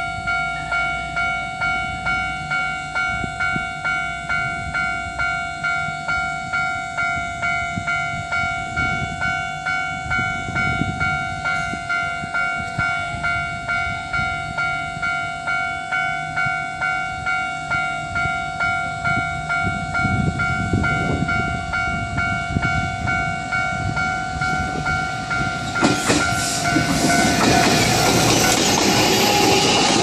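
Japanese level-crossing warning bell ringing in a steady, evenly repeating clang while an electric train approaches. About 26 seconds in, the train reaches the crossing and runs past loudly, its wheels and running gear rumbling over the bell.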